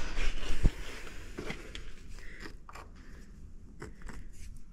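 Rustling handling noise, then scattered light scratches and clicks as a yellow marker is drawn across a rusty steel truck frame rail.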